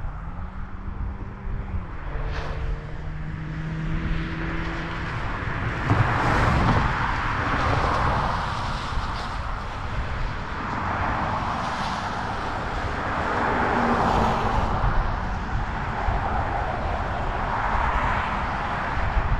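Cars passing on the road alongside, several in turn, each swelling and fading, over a steady low rumble.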